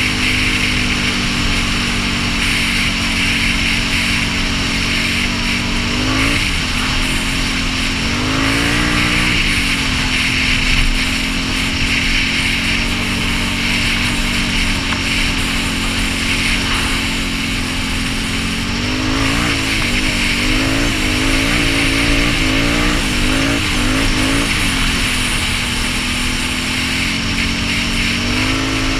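2016 Can-Am Renegade 850 ATV's V-twin engine through a Yoshimura aftermarket exhaust, running steadily under way, with its pitch rising and falling as the throttle changes about 6 and 9 seconds in and repeatedly in the second half. A steady rushing hiss of wind and trail noise runs underneath.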